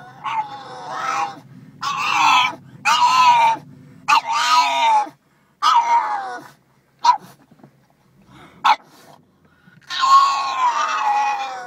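A pug whining in long, high cries that fall in pitch, about six of them, with a couple of short yelps in a lull. It is his excited reaction to being told he is going to the pet store.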